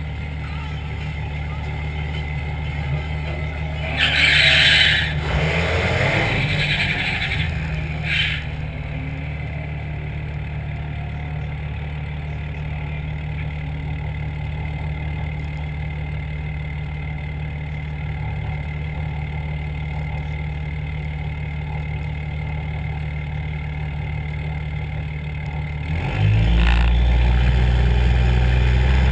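Cummins turbo-diesel dually pickup idling steadily, heard from on its hood, with loud hissing bursts between about four and eight seconds in. Near the end the engine note grows louder and deeper.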